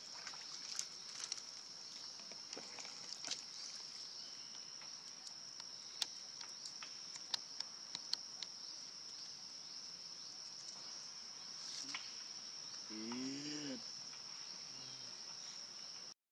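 Forest insects droning steadily at a high pitch, with scattered light clicks and taps. A brief voice sounds a little before the end.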